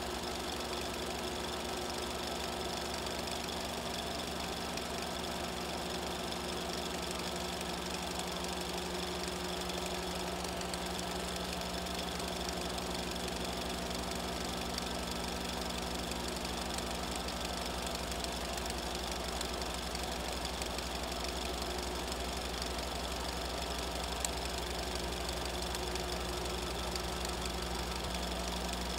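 A film projector running: a steady mechanical whirr with a fast, even rattle over a constant low hum.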